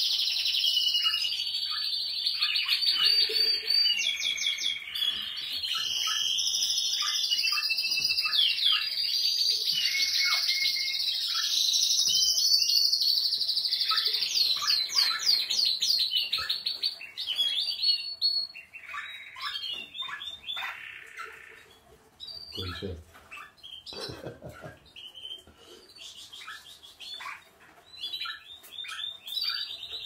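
Domestic canaries singing in a room of cages: dense, rapid trills and rolling phrases for the first half, thinning later into shorter phrases and scattered chirps.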